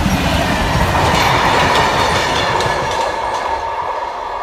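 Freightliner Class 66 diesel locomotive passing at close range with a train of tank wagons: a low engine rumble as the locomotive goes by, then the wagons' wheels clattering over the rail joints. The sound eases as the train draws away.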